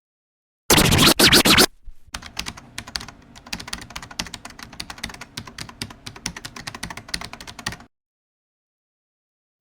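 A loud burst lasting about a second, then rapid keyboard-typing clicks over music for about six seconds, cutting off abruptly.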